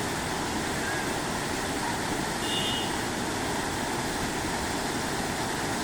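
Steady rushing of a waterfall: an even wash of falling-water noise with no breaks. A brief faint high tone sounds about two and a half seconds in.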